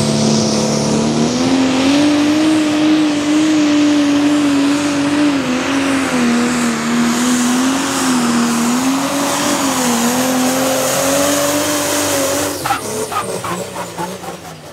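Pro Stock pulling tractor's turbocharged diesel engine running at high revs under load, its pitch rising about a second in and then wavering up and down. Near the end the engine note breaks off into a series of sharp cracks and pops and the sound falls away as the run ends.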